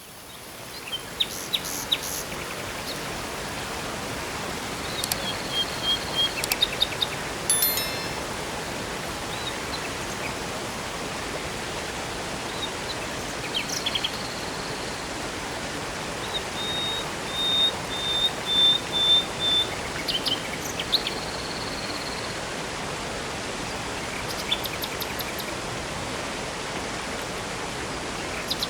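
Steady rush of a river and waterfall, fading in at the start, with songbirds chirping over it. Just past the middle, one bird gives a run of about seven short, evenly spaced notes.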